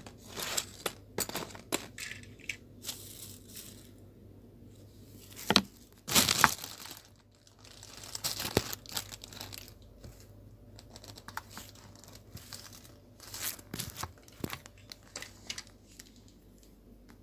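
Clear plastic bag crinkling and rustling as it is handled, in irregular bursts, loudest about six seconds in, with small clicks and taps of plastic model-kit parts in between.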